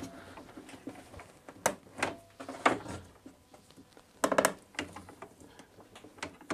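Tekton trigger clamp being squeezed on, its trigger handle giving a series of sharp clicks and knocks, roughly a second apart, with a quick cluster of them a little past the middle.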